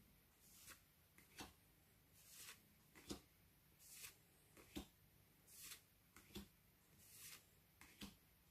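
Faint swishes and soft taps of Pokémon trading cards being slid off the stack one after another, about one a second.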